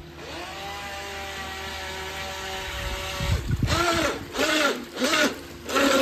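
The small electric motor of a Force1 Velocity H102 RC boat whining as it spools up and holds a steady high pitch. About halfway through, four louder short sounds follow, each rising and falling in pitch, about half a second apart.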